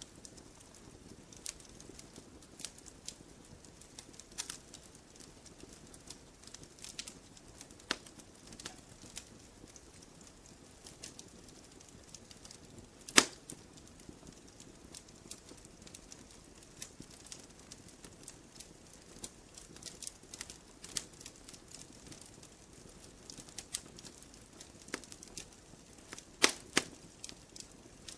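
Burning logs in a wood fire crackling: irregular sharp snaps over a soft steady hiss, with one loud pop about halfway through and a quick cluster of loud snaps near the end.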